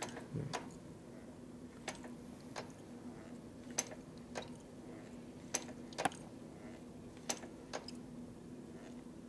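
Irregular light clicks and taps from hand work on a motorcycle's hydraulic brake, about one a second, over a steady low hum. The brake lever has movement but pushes no fluid through.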